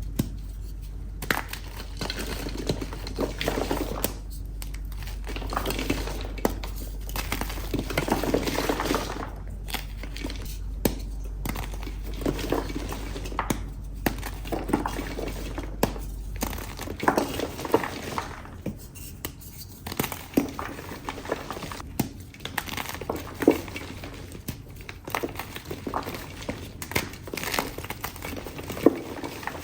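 Blue and yellow chalk being crushed, crunching and crumbling with many small sharp snaps and a powdery crackle.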